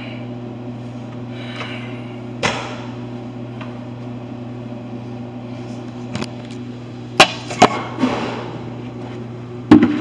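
Sharp metallic knocks and clanks from work on a drinking fountain's plumbing. A few scattered knocks come first, then three loud ones close together near the end, over a steady low electrical hum.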